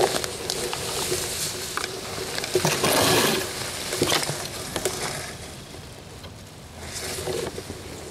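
Rustling and crackling of weeds and leaves brushing against a ghillie suit as someone crawls through dense brush, in uneven bursts with small snaps, loudest about three seconds in.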